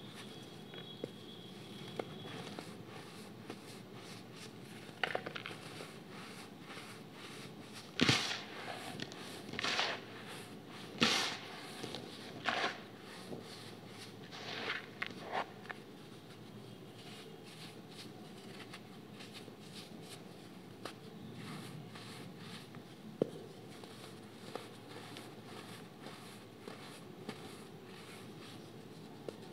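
Clumps of baking soda being crushed and crumbled between fingers. A run of short crunches comes through the first half, loudest about a third of the way in. After that there is mostly a steady hiss, with one sharp click about two-thirds of the way through.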